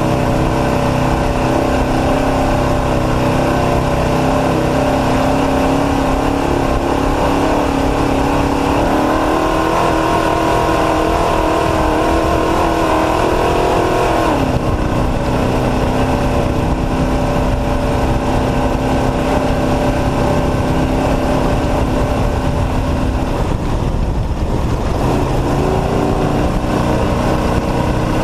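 Off-road race truck's engine running hard under load over a steady rush of road and wind noise. Its pitch climbs about nine seconds in, drops suddenly a few seconds later, then dips and climbs again near the end.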